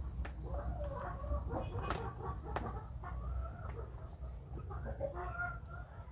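Young chickens making many short, overlapping calls, with a few sharp taps of beaks on the water trough.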